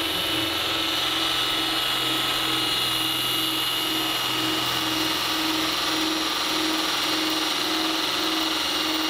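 Milwaukee M18 FUEL brushless cordless drill running steadily under load, its bit boring into a metal bar held in a vise.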